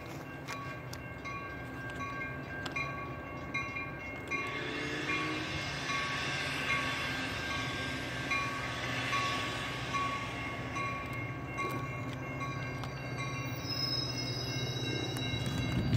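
Passenger train's bell ringing at a steady pace over a low engine hum, with a rush of noise swelling up and dying away through the middle.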